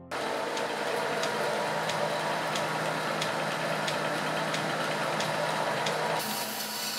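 Old belt-driven woodworking machine running: a flat drive belt turning over cast-iron pulleys with a steady mechanical hum and a light tick about twice a second. The sound grows brighter about six seconds in.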